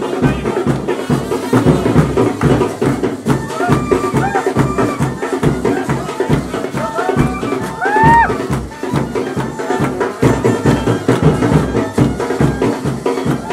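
Music with a fast, steady drum beat and a few short sliding melody notes above it.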